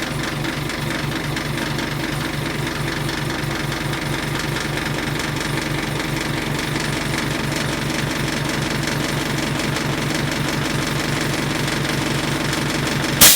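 Air compressor pressurising an LCD bubble-removing autoclave, running with a steady, fast pulsing rhythm. It cuts off abruptly with a sharp click near the end as the machine reaches its set pressure.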